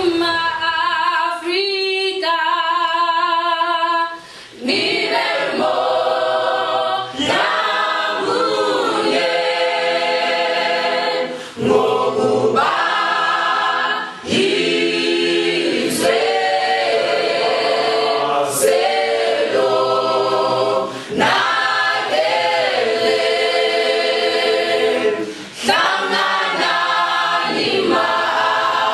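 Mixed choir of young men's and women's voices singing a cappella in harmony, phrase after phrase with brief breaks between them.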